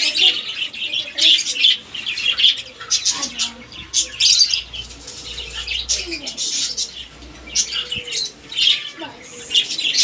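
Birds chirping and chattering in quick, high-pitched bursts that repeat over and over.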